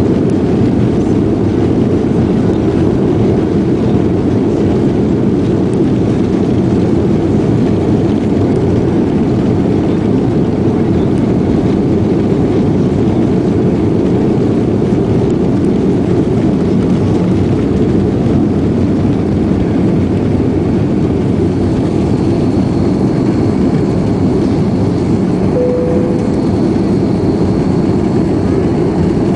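Airbus A330 jet engines at takeoff thrust, heard inside the passenger cabin: a steady, loud, low roar through the takeoff roll, lift-off and initial climb. A faint high whine joins in about two-thirds of the way through.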